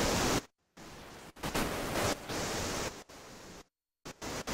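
Hiss-like noise that cuts in and out abruptly in blocks: it stops about half a second in, returns quieter, grows louder, cuts out again after about three and a half seconds and comes back near the end.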